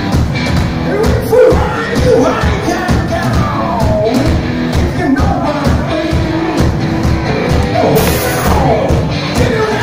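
Live hard rock band playing loudly: electric guitars, bass and drums with a shouted, yelling lead vocal.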